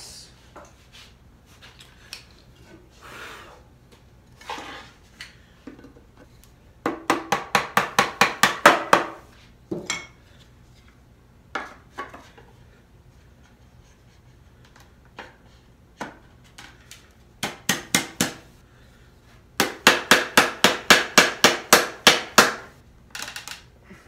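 Quick runs of taps on a wooden drawer box, about five or six a second, as its dovetail joints are knocked together, with scattered softer knocks and wood rubbing between. The longest run comes about two-thirds of the way in.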